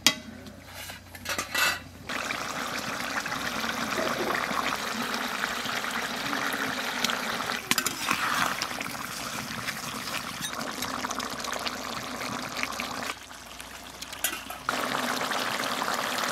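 Fish curry with cauliflower and potato bubbling in a metal kadai, with a spatula stirring through the gravy and a few metal clinks at the start. The steady bubbling hiss drops away for about a second and a half near the end, then returns.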